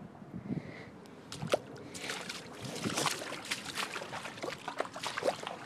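Footsteps in boots wading and splashing through shallow floodwater: a few quiet sloshes and a sharp splash about a second and a half in, then a busy run of irregular splashes from about two seconds on.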